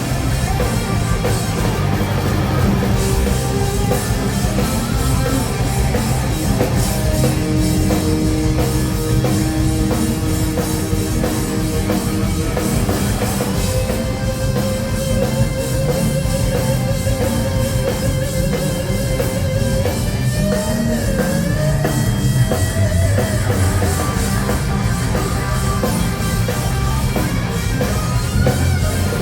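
Live rock band playing, with drums, bass and an electric guitar lead that holds long, wavering notes and bends between them.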